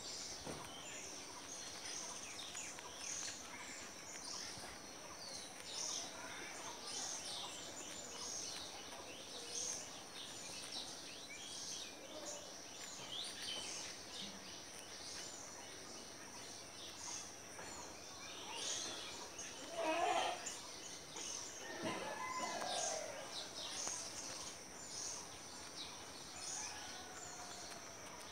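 Outdoor ambience of many small birds chirping in quick, high calls over steady background noise. A louder, lower call stands out about twenty seconds in, with another shortly after.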